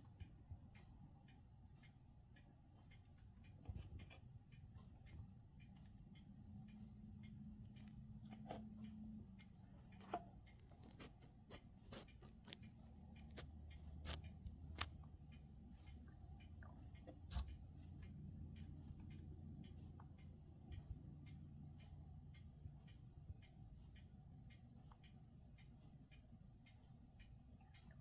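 Near silence: quiet room tone with faint, steady ticking and a low hum that swells slightly in the middle, broken by a few soft clicks.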